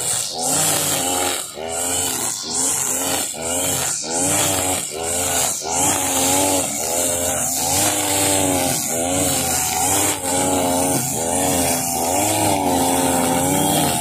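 Husqvarna 542RBS backpack brush cutter's two-stroke engine revving up and down over and over while its nylon trimmer line cuts grass. The revs swing about once a second at first, then in longer, slower surges.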